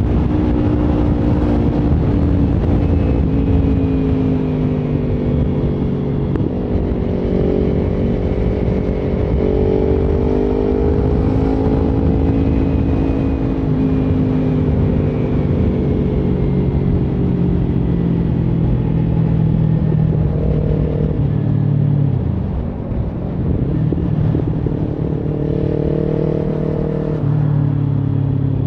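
Kawasaki Ninja 300's parallel-twin engine running under way, its pitch rising and falling as the rider accelerates and eases off, over a low rumble of wind and road noise.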